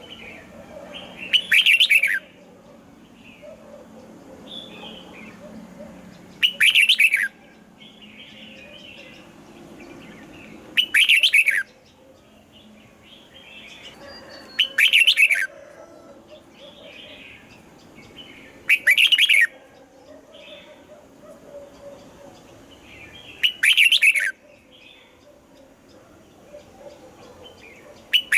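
Red-whiskered bulbul singing a short, loud phrase six times, about every four seconds, with fainter bird chirps in between.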